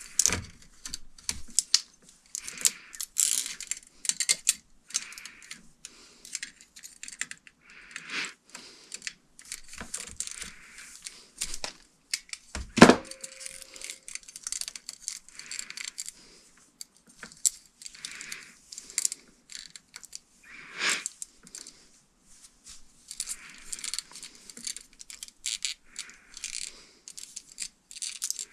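Irregular clicking, clinking and rustling of small hard parts and tools being handled during ceiling fan installation work, with one louder knock about halfway through that rings briefly.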